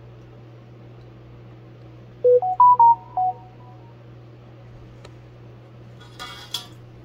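A short electronic jingle of pure beep tones about two seconds in, stepping up in pitch and then back down, lasting about a second, like a phone notification or ringtone. Near the end comes a brief clatter, like a utensil against a dish.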